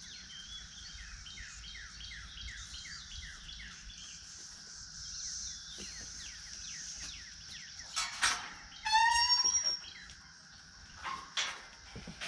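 Small birds chirping in a fast run of short falling notes. About nine seconds in comes the loudest sound, a short, high, pitched animal call.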